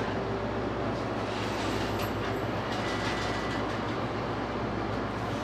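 Steady low hum and hiss of convenience-store machinery, with a faint short tone about three seconds in.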